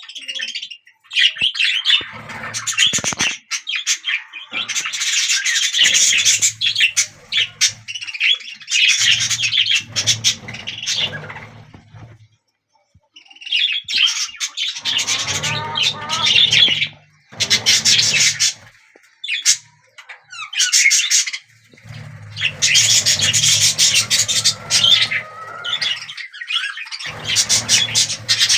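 Budgies in a nest box chirping and squawking in bursts of a few seconds, with short pauses between.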